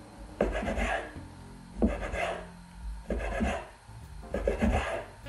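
Knife cutting folded fresh egg-pasta dough into tagliatelle strips on a wooden board: four strokes about a second and a half apart, each a knock of the blade on the wood followed by a short scraping rasp.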